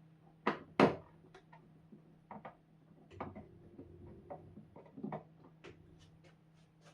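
Two sharp knocks about half a second in, then scattered light clicks and taps, the sound of objects being handled and set down during TV repair work.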